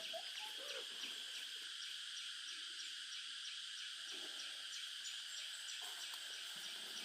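Chickens clucking faintly a few times over a steady high hiss.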